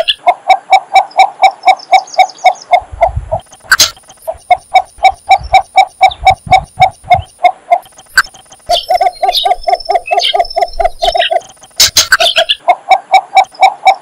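Cinnamon bittern calling: runs of short, evenly repeated notes, about five a second, in four series broken by brief pauses.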